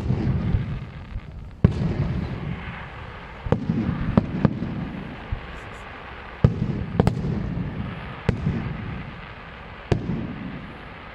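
Fireworks display bursting: about nine sharp bangs at irregular intervals of one to two seconds, each followed by a low rolling rumble that fades away.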